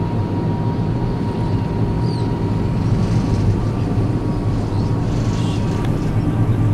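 Steady low drone of a car ferry's engines running under way, with a rush of wind and water over it.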